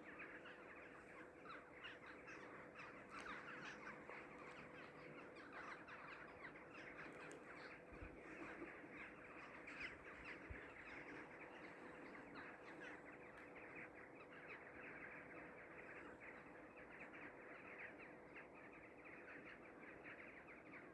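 Faint, dense chatter of a flock of birds, many short calls overlapping without pause, over a faint steady hum.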